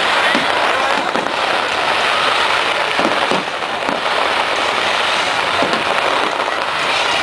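Aerial fireworks crackling densely and without a break, with several deeper bursts mixed in.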